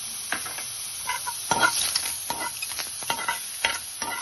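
A steel spoon stirring sliced mushrooms in a nonstick frying pan: repeated irregular scrapes and clicks of metal against the pan over a steady sizzle of the mushrooms frying in a little oil.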